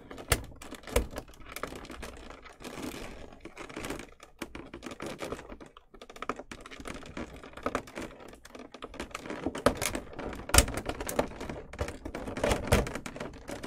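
Hands working a piece free from a figure's plastic packaging tray: irregular crackles and clicks of stiff plastic.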